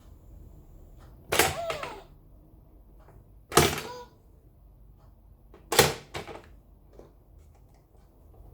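A Tiny Love baby activity toy struck or pressed three times, about two seconds apart, each a sharp knock with a short sounding tail.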